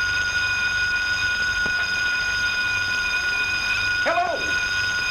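A steady, high-pitched alarm tone held without a break. About four seconds in there is a short squeal that rises and falls in pitch.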